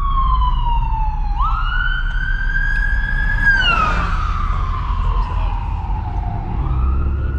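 A siren wailing, its pitch sliding slowly down and up with a sudden upward jump about a second in, over a steady low rumble like road noise inside a car.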